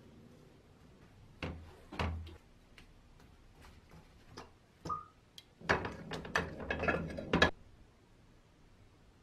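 Handling noises on a workbench: scattered knocks and clicks of metal parts and a brush, with a brief high ring. Near the end comes a dense run of clatter lasting about two seconds that cuts off suddenly.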